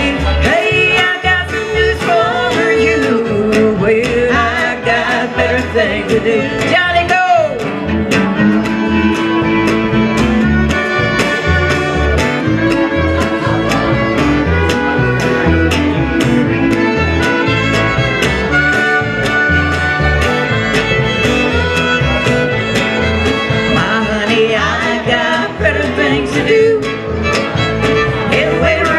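Live country band playing an instrumental break, a fiddle taking the lead over strummed acoustic guitar and upright bass.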